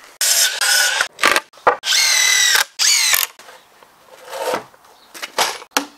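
Cordless drill driving screws into timber, in four short runs of a whine that climbs in pitch as the motor spins up, followed by a few light knocks.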